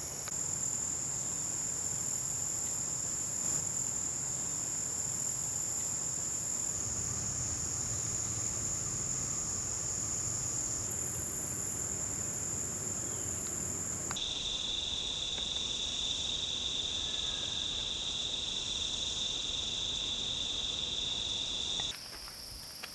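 Crickets trilling in a steady, continuous high-pitched chorus. About fourteen seconds in it gives way to a lower, steady insect trill.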